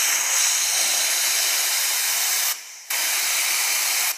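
Steady hiss of air being blown in to inflate a dead deer's lungs, breaking off briefly about two and a half seconds in and again at the end.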